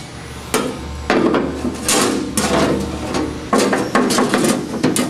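Hammer blows on 18-gauge steel sheet metal, a quick run of taps in several short bursts, flattening a welded-in panel that welds are holding off the panel beneath.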